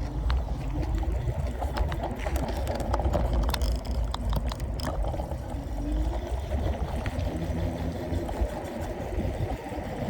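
Wind buffeting the microphone in a steady low rumble, with road noise from a riding electric scooter and a few scattered clicks.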